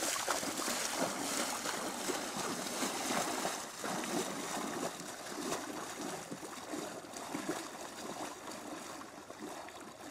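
River water splashing and sloshing around a person's legs as he wades out, in uneven surges.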